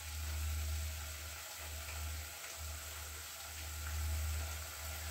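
Thick tomato-onion masala frying in a steel kadai, with a faint sizzle and an occasional soft pop. Under it, a low rumble swells and fades several times.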